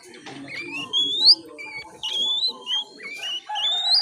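Young oriental magpie-robin (kacer) making the 'ngiriwik' call of a juvenile learning to sing: a string of thin whistles, each sliding upward in pitch, the longest climbing for about a second.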